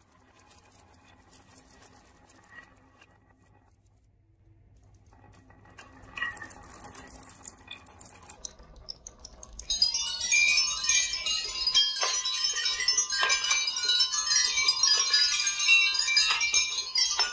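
Glass marbles rolling and clicking down a wavy wooden marble-run track. The sound is faint at first, with a brief near-silent pause about four seconds in. From about ten seconds in it becomes a loud, dense, chime-like tinkling clatter of many marbles clicking against each other and the track.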